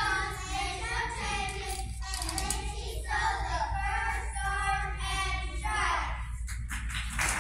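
A large group of children singing together as a choir. The singing dies away about six seconds in, and scattered clapping starts near the end.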